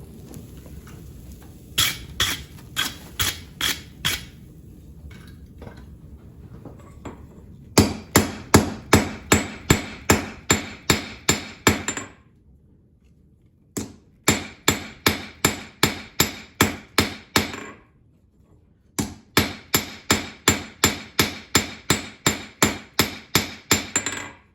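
Hand hammer striking hot 5160 coil-spring steel on an anvil, drawing the punch's working end down toward a thin chisel-like point. A few scattered blows over a steady rushing noise at first, then fast, even blows with a metallic ring, about four a second, in three runs separated by short pauses.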